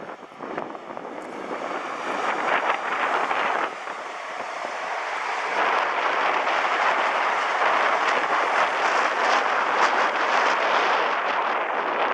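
A Class 43 HST passing at speed: a rush of engine and wheel noise that builds over the first few seconds, eases briefly, then is loudest for most of the second half.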